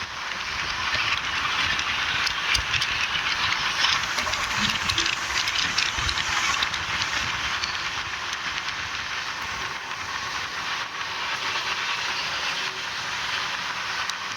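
Train running along the track: a steady rushing noise with scattered clicks and low thumps.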